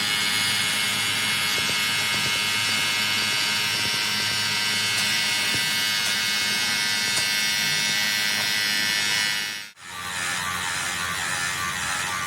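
Machine running with a steady high whine. About ten seconds in it cuts off abruptly and a rougher, buzzing machine sound takes over.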